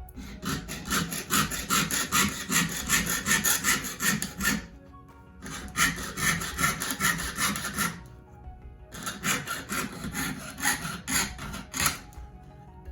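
Jeweler's saw, its blade waxed with beeswax, cutting through copper sheet with quick back-and-forth strokes. It saws in three runs, pausing briefly about five and eight seconds in.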